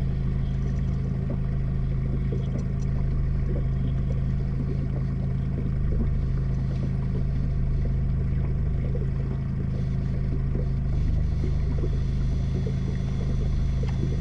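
Fishing boat's motor running steadily at trolling speed, a low even drone.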